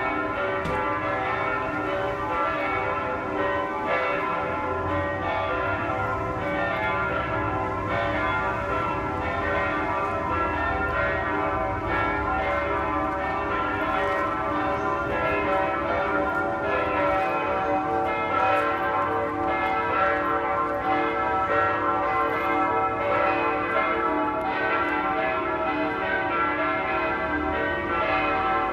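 Several church bells ringing continuously together, their strikes overlapping so the tones blend into one unbroken ringing.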